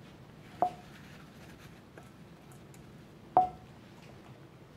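Two sharp clinks of kitchenware, about three seconds apart, each ringing briefly.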